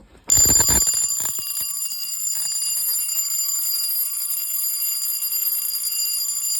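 Electric fire alarm bell starting to ring about a quarter second in, loudest at the start, then ringing steadily. The owner says it is not ringing like it should and sounds weird.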